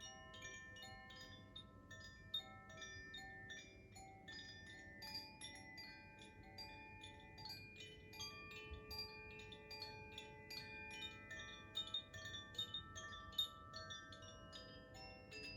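Koshi chimes played by hand: a steady, unhurried stream of soft metallic strikes, their clear tones ringing on and overlapping one another.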